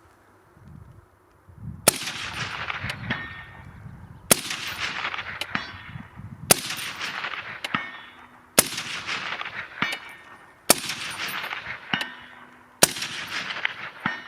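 Suppressed HK MR308 .308 semi-automatic rifle with an Ase Utra DUAL762 suppressor fired six times at a slow steady pace, about one shot every two seconds, each report trailing off in a long rolling echo. A fainter sharp crack follows about a second after each shot.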